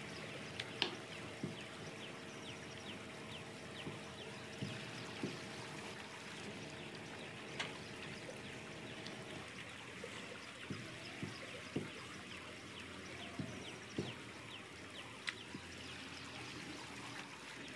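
Puri dough being rolled out with a rolling pin on a wooden board: a faint, steady rolling hiss with scattered light taps as the pin and the dough are shifted on the board. A faint steady hum underneath stops about halfway through.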